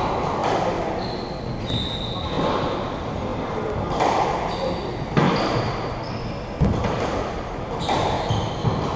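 Squash rally: the ball striking rackets and the court walls in sharp, echoing knocks about a second apart, with sneakers squeaking briefly on the wooden floor.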